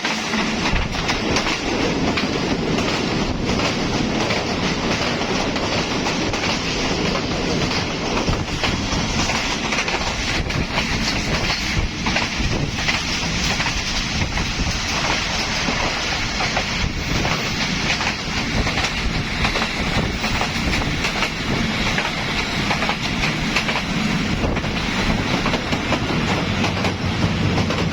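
Mohenjo Daro passenger train's wheels running over the track: a steady rumble with continuous rhythmic clickety-clack from the wheels striking rail joints.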